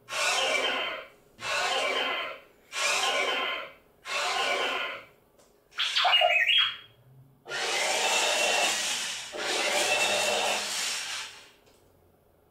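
Neo toy robot's leg motors and gears whirring in one-second bursts, about one every 1.3 seconds, as it walks. About six seconds in comes a short electronic sound with a sliding pitch, followed by two longer stretches of whirring.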